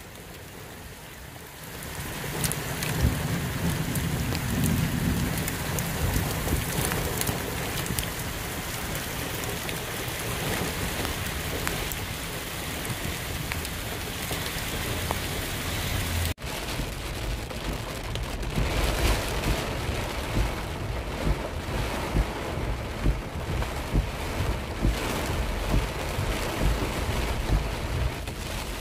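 Heavy rain falling, a steady hiss with running runoff water. About halfway through the sound cuts abruptly to rain with a low, uneven rumble underneath.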